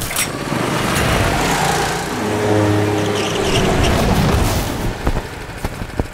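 Go-kart engines running, loud and dense, with a few sharp clicks in the last second.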